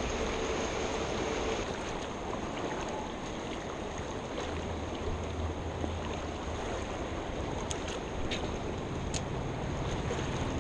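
Mountain stream water rushing steadily, with a few faint ticks in the second half.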